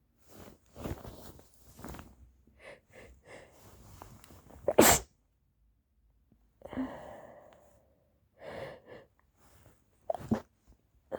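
A person with a stuffy head cold sneezing: a run of short, catching breaths builds to one loud sneeze about five seconds in, followed by a few shorter breathy bursts.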